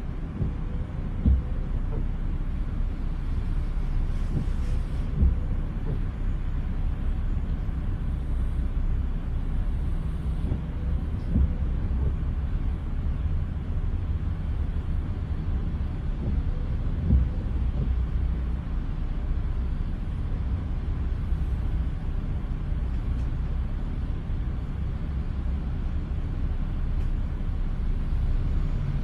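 Steady low rumble inside a car stopped in traffic in the rain, with four short thumps several seconds apart.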